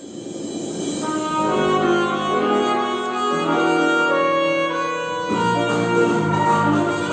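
Instrumental intro of a pop song's backing track, fading in over the first couple of seconds, then held chords with a melody line on top; the harmony shifts about five seconds in.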